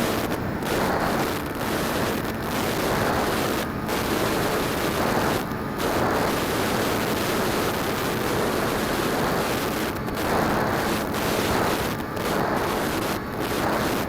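Phantom quadcopter in flight, heard through its onboard keychain camera: a steady rushing noise of spinning propellers and wind over the tiny microphone, with small dips in loudness every second or two.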